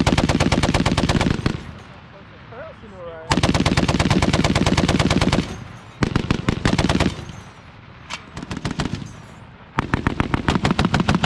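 M2 .50-caliber heavy machine gun firing five bursts of automatic fire, each about one to two seconds long, with short pauses between them.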